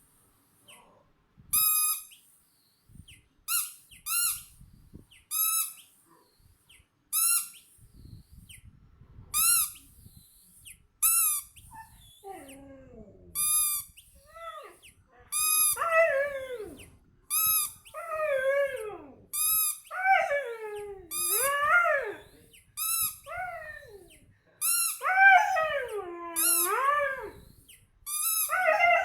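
A squeaky toy squeezed again and again, giving short high squeaks every second and a half or so. About halfway in, a husky starts answering with howls that slide up and down in pitch, growing longer and louder toward the end.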